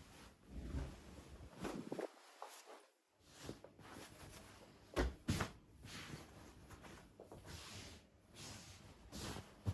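Household handling sounds: rustling and light knocks of things being moved and put away, with two sharp knocks close together about five seconds in and another near the end.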